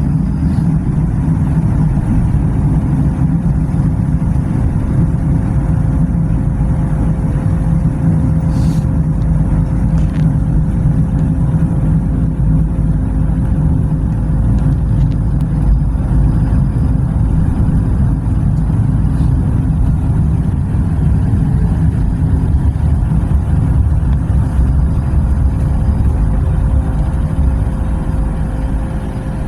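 Steady low rumble of a passenger train running along the track, heard from inside the carriage, with a faint steady hum over it.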